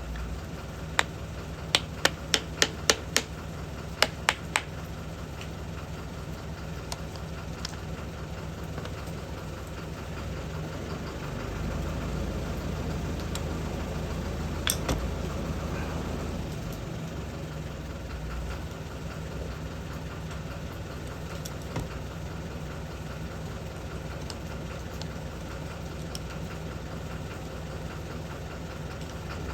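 A steady machine hum runs throughout, with a quick series of about nine sharp metallic taps in the first few seconds and a single tap about halfway through.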